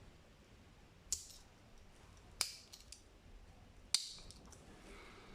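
Tools of a Victorinox Spartan Swiss Army knife snapping against their backsprings as they are worked: three sharp metallic clicks, each about a second and a half apart.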